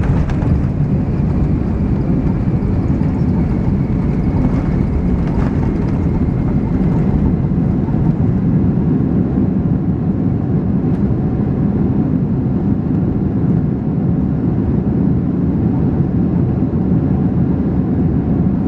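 Steady low rumble of a Boeing 767-300ER heard from inside the cabin, engines and airflow running. A faint high whine fades out several seconds in.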